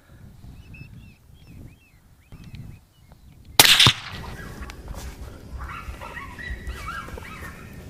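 A single rifle shot about three and a half seconds in, followed by the hit coyote yelping and crying out repeatedly in high, wavering cries.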